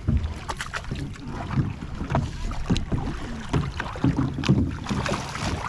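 Irregular knocks and splashes from a kayak and the water around it, over a steady low wind rumble on the microphone.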